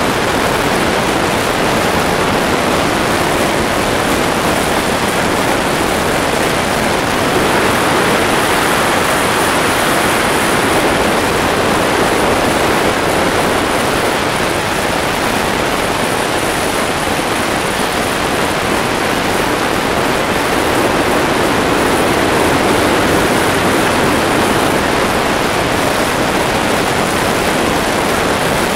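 Steady loud roar of a de Havilland Canada Twin Otter's PT6A turboprop engines and propellers in level flight, heard from inside the cabin beside the engine.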